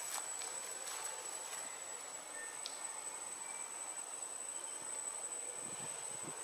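Insects droning in the forest: one steady, high-pitched whine that holds unbroken over a soft hiss of outdoor background, with a few faint clicks near the start.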